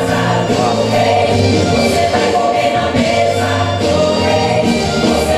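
Recorded gospel choir music, choir singing over sustained bass notes, playing from a CD through the church mixing desk and speakers.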